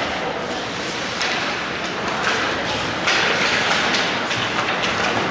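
Ice hockey play in an arena: skates scraping on the ice and several sharp clacks, over a steady background of rink noise.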